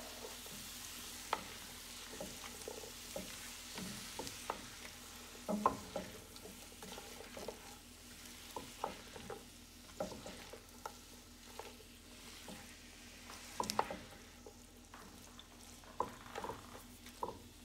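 Spatula stirring and scraping chicken and vegetables around a skillet, with irregular soft taps and scrapes against the pan over a faint, steady sizzle from the still-hot food.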